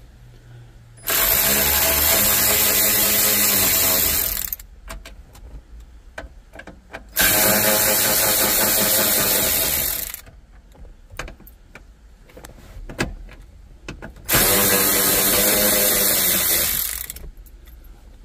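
Cordless electric ratchet running in three bursts of about three seconds each, spinning out the 6 mm or 7 mm screws around the radio in the dash, with light clicks of handling between the runs.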